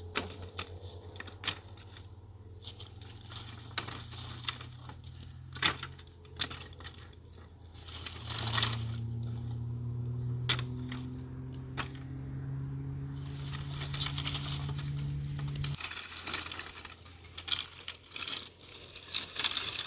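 Irregular clicks, clinks and knocks of small hard objects being handled, over a low steady hum that rises slightly in pitch about eight seconds in and stops abruptly about sixteen seconds in.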